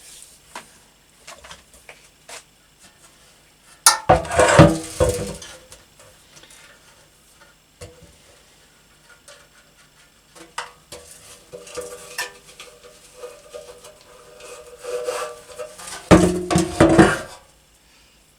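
Metal clattering and clinking from handling the motorcycle petrol tank and small metal parts, with scattered light clicks and two louder bouts of ringing rattling, one about four seconds in and one near the end.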